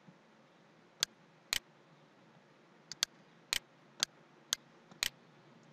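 Sharp clicks from operating a computer: a pair about a second in, then a run of about six at roughly two a second.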